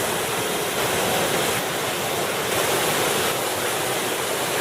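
Steady rush of river rapids: whitewater running as one even wash of noise.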